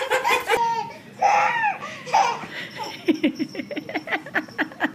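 A young child laughing, ending in a quick run of short giggles, about six a second.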